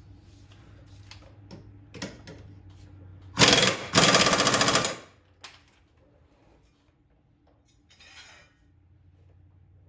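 Impact wrench hammering in two short bursts, the first about half a second and the second about a second, a few seconds in, after a few light metal knocks. This is typical of a mower blade bolt being run tight.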